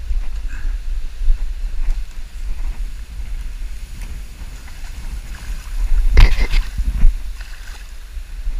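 Wind buffeting the microphone as a steady deep rumble, with a louder rough burst of noise about six seconds in.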